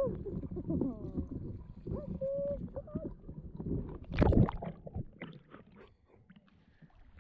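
Water sloshing and splashing, with one loud splash about four seconds in. Over the first three seconds come short, high whining cries that rise and fall.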